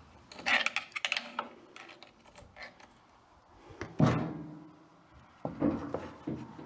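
Socket wrench and metal parts clicking and clinking as a crankshaft bearing-cap bolt is loosened on a John Deere Model E hit-and-miss engine. There is a single heavier thunk about four seconds in and a few lighter knocks near the end.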